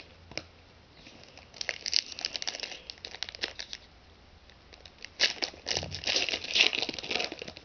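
Foil wrapper of a trading card pack crinkling and tearing as it is opened by hand, in two spells of crackling: one beginning about a second and a half in, the other about five seconds in.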